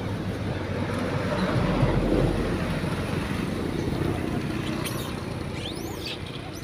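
Road traffic passing: the engine and tyre noise of a vehicle on the road swells over the first couple of seconds and then slowly fades away.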